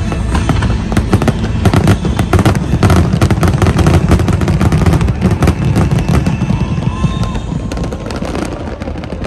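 Fireworks: rapid, overlapping bangs and crackles from many shells bursting at once, thinning out over the last couple of seconds.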